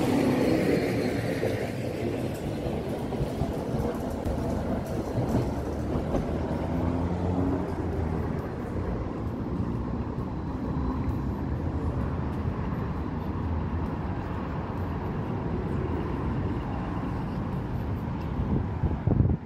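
City street traffic: a tram running past in the first couple of seconds, then a steady rumble of passing cars.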